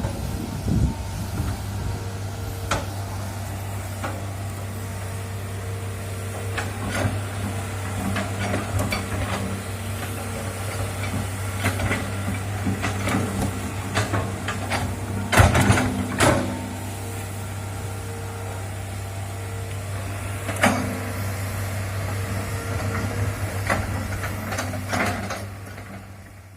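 Excavator's diesel engine running steadily while it digs, with intermittent metallic knocks and clanks from the bucket and arm. The loudest clank comes a little past the middle.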